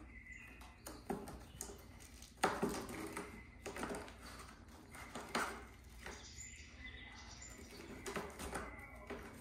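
A cat tussling with a fabric wand toy against a cardboard scratcher and the floor: irregular soft thumps, scuffs and rustles, the strongest about two and a half seconds in.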